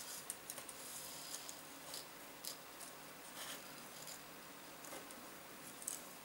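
Faint scattered rustles and small clicks of waxed cord being pulled and knotted by hand, with a few sharper clicks at the start and near the end and a longer rustle about halfway through.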